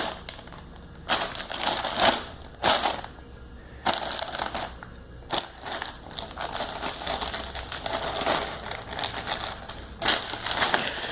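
Plastic bag crinkling and rustling in irregular bursts as cats play in and pounce on it.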